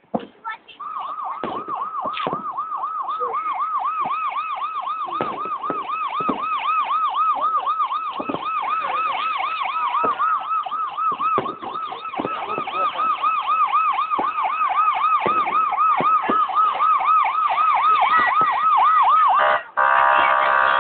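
A siren in a fast yelping warble, sweeping up and down a few times a second. Near the end it switches abruptly to a different, denser tone.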